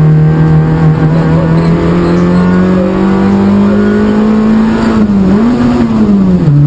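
Peugeot 106 Rally N2 rally car's engine heard from inside the cockpit at speed, its pitch climbing slowly as the car accelerates along a straight, dipping briefly about five seconds in, then dropping as the revs fall near the end.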